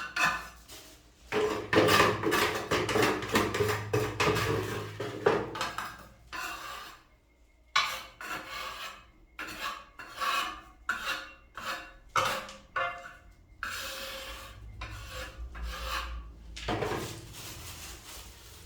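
Irregular scraping and rubbing strokes of a tool working white cement grout around the base of a toilet, sealing the joint with the floor. The strokes come thick and fast for the first several seconds, pause briefly, then continue more lightly.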